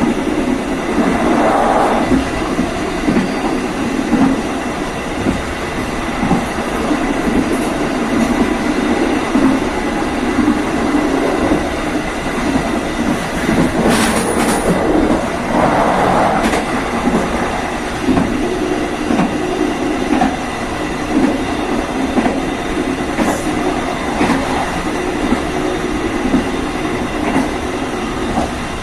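Passenger train running along the rails, with a steady rumble of the wheels and a clickety-clack as they pass over the rail joints. About halfway through there is a brief sharp, high-pitched burst.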